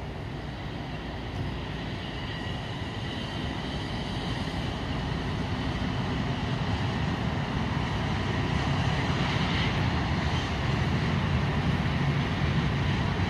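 CSX freight train passing: the diesel locomotive's rumble grows steadily louder as it goes by, then freight cars roll past.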